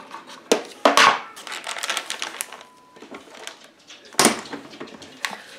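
Plastic vacuum-sealer bags being handled: crinkling and rustling with a string of clicks and taps, and a louder sharp rustle about four seconds in.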